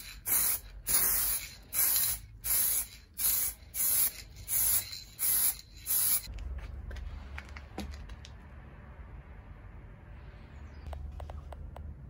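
Aerosol spray-paint can sprayed in about ten short hissing bursts over six seconds. After that, a low steady rumble with a few light clicks near the end.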